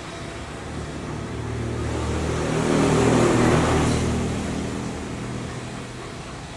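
A motor vehicle passing by, its engine and road noise swelling to a peak about three seconds in and then fading away.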